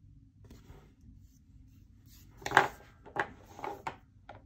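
Hands handling a paper planner page and a sticker: a few short taps and rustles, the loudest about halfway through, over faint room noise.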